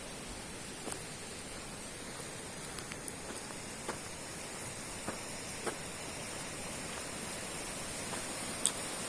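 Steady rushing of a fast river, with a few faint, irregular clicks scattered over it.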